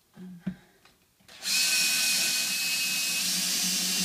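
Cordless drill/driver driving a screw through the face of a reclaimed-wood floorboard. After a single knock, the motor starts about a second and a half in and runs steadily under load.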